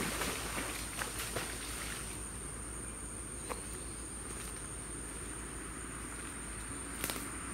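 Steady high-pitched insect drone, with a small splash on the pond surface at the start and a few short clicks in the first second and a half, one more midway and a cluster near the end.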